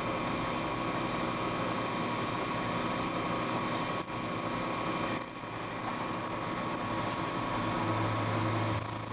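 Milling machine running steadily with a constant motor and spindle hum. About five seconds in, a thin high whine joins it for a couple of seconds.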